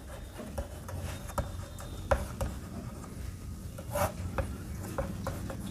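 Chalk writing on a blackboard: scratchy strokes with short sharp taps as the chalk meets the board, the strongest about two seconds in and again about four seconds in, over a low steady hum.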